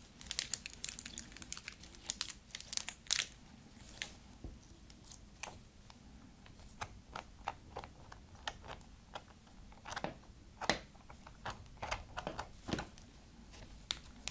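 Clear blue rubbery slime being stretched, folded and pressed between the hands, giving sticky clicks, crackles and small pops. They come thick and fast for the first few seconds, then as scattered single pops.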